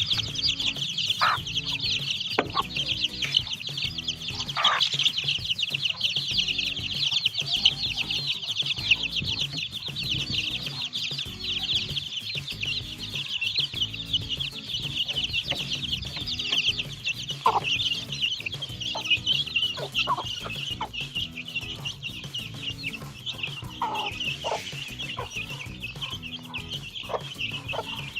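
Desi chickens: a dense, continuous high cheeping of many chicks, with a few short lower clucks from the hen now and then.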